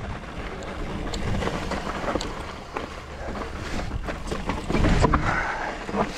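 Wind buffeting the microphone over a low rumble, with scattered knocks and rattles from moving over a rough trail.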